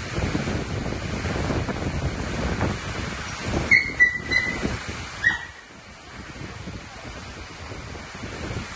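Storm wind and heavy rain, the gusts rumbling on the microphone, easing off in the second half. Around the middle come a few short high yelps.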